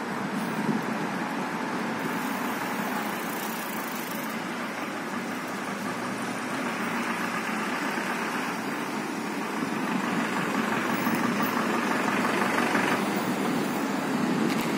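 Steady motor-vehicle noise on a city street: an engine running under an even rush of road noise, getting a little louder in the last few seconds.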